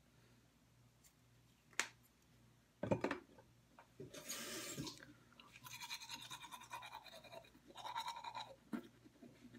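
Faint brushing of teeth with a toothbrush, in short rhythmic spells through the second half. Before it come a couple of soft knocks and a short hiss.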